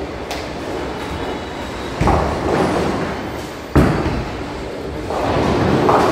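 Bowling balls rolling down the lanes with a steady low rumble, with a thud about two seconds in and a sharper, louder thud just under four seconds in as a ball meets the lane.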